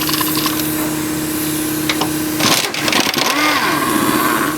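3/8-inch cordless impact gun with a 13 mm socket, run on a strut's top mounting bolts to loosen them. There is a short loud hammering burst about two and a half seconds in, followed by a rising and falling whine, over a steady hum.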